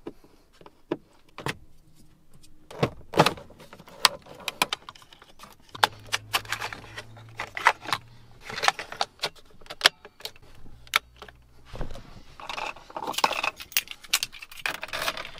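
Irregular clicks, taps and rattles of plastic dash trim and a screwdriver as a Toyota Corolla's center dash bezel is unscrewed and the clock swapped. A denser jingle of keys comes near the end as the key goes to the ignition.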